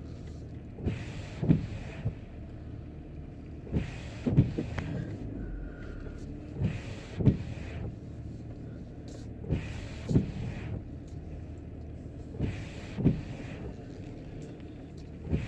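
Car windshield wipers sweeping in rain, a short knock at each end of the stroke, so the knocks come in pairs about half a second apart, repeating every three seconds or so. Under them runs a steady low hum of the car's engine.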